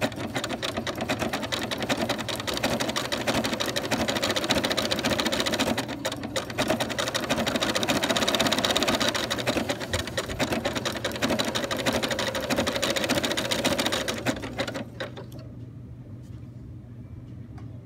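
Domestic sewing machine stitching steadily at speed along the edge of an appliqué strip, with a brief slowdown about six seconds in. It stops about three seconds before the end, leaving only a low hum.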